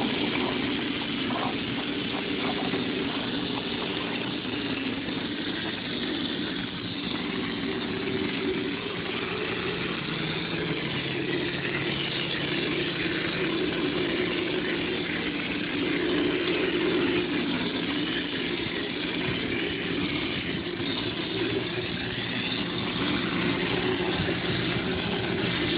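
Hopper texture gun spraying a hard-coat finish: a steady hiss of compressed air over a steady motor hum.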